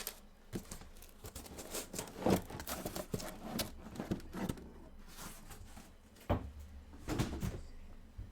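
Packaging of sealed trading-card boxes being handled: plastic wrap crinkling and tearing, with irregular light knocks and crackles.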